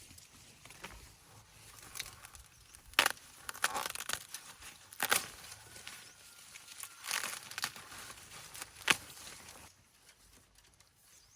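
Dry plant material rustling and tearing by hand, with several sharp snaps, the loudest about three seconds in and near the end; it dies down shortly before the end.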